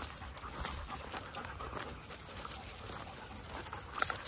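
A dog panting close by, over footsteps crunching on dry leaf litter and twigs, with a louder crunch near the end.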